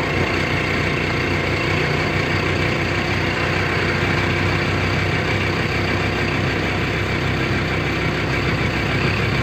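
Small motorcycle engine running steadily while under way, heard from on board as a constant low hum.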